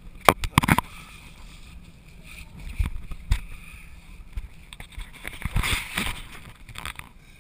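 Handling noise from a hand-held GoPro in its waterproof housing: a quick cluster of sharp knocks and scrapes in the first second, two dull thumps around three seconds in, and a longer scuffing rustle near six seconds as the camera is swung about.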